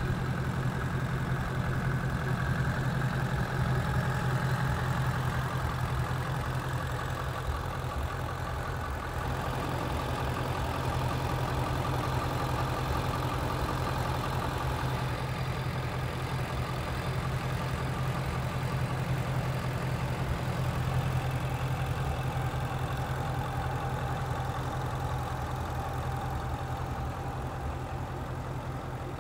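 2016 Ford Mustang Shelby GT350's 5.2-litre flat-plane-crank V8 idling steadily, an even low engine hum with no revving.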